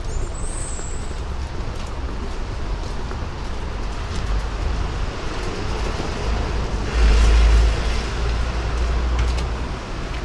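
Street traffic noise: a steady low rumble, with a vehicle passing close and swelling louder about seven seconds in.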